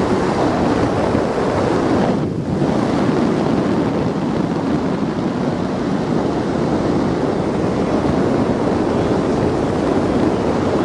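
Heavy wind rushing over the microphone during a skydive: a steady, dense rush with a brief dip about two seconds in.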